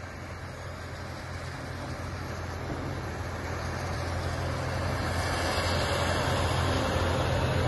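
Heavy diesel engines of a super dump truck and a Komatsu 300LC excavator running on a work site: a steady low drone with a broad noisy wash that grows gradually louder, as the excavator raises its boom to load the truck.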